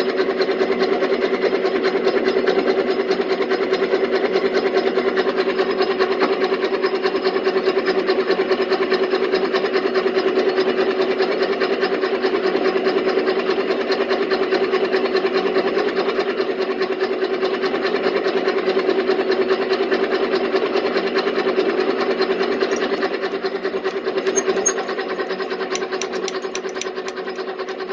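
Metal lathe running steadily, drilling an oiled pilot hole in a metal part, with a constant motor hum; the sound eases a little near the end.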